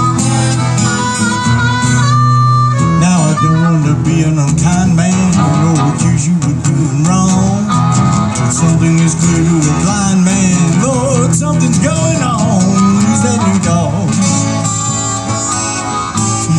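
Harmonica playing a wavering lead melody over two acoustic guitars strumming chords, live.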